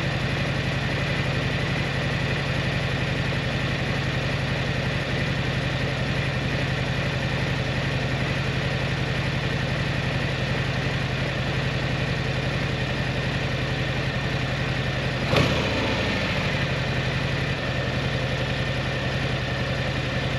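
Stock-exhaust twin-cylinder cruiser motorcycle engine idling steadily, with a sharp click and a short blip of the throttle about fifteen seconds in before it settles back to idle.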